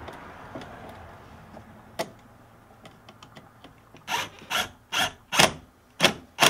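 A cordless screwdriver working a screw into a relay-block bracket. A few faint clicks, then, from a little past halfway, a run of seven short, sharp clicks about two a second.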